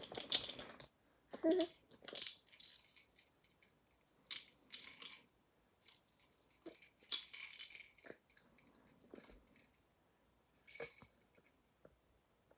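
Plastic baby rattle toy shaken in about six short bursts of rattling, with pauses between.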